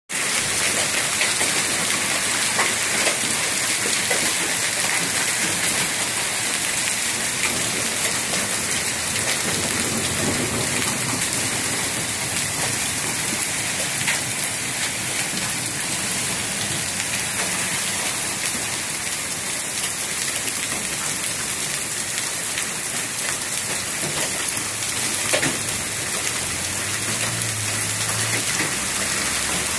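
Dime-size hail falling with rain, a dense, steady patter of stones hitting grass, stone and pavement. A few sharper single hits stand out here and there.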